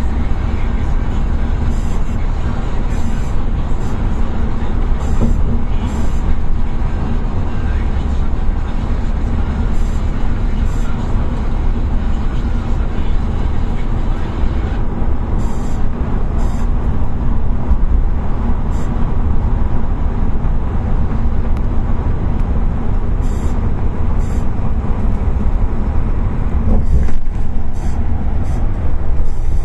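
Steady engine and tyre rumble inside a bus cabin cruising at motorway speed, heavy in the low end.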